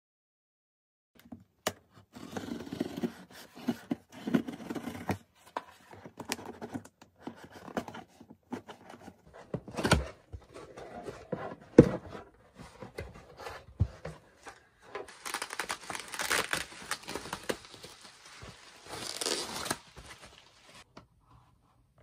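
Cardboard shipping box being handled and unpacked by hand: irregular rustling, sliding and scraping of cardboard, with two sharp thumps about ten and twelve seconds in. From about fifteen to twenty seconds there is a louder stretch of scraping and tearing of cardboard.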